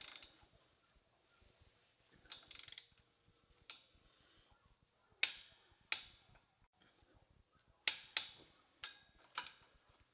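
Hand ratchet wrench clicking as bolts are turned down, in short runs and single sharp clicks with pauses between strokes; the loudest clicks come a little past the middle and again near the end.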